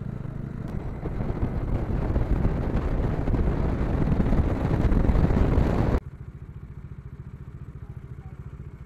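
Bajaj Dominar 400's single-cylinder engine and wind noise as the motorcycle gathers speed, growing louder for about six seconds. Then the sound cuts off suddenly to a quieter, steady engine note.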